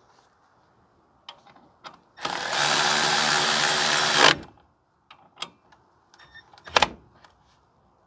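A power tool runs in one steady burst of about two seconds, tightening the bolt of the brake hose bracket on a truck's wheel hub. A few light clicks and taps come before and after, with one sharp knock near the end.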